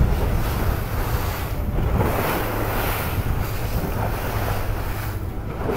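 Wind buffeting the microphone over water rushing and splashing along the hull of a moving boat, swelling and easing in irregular surges.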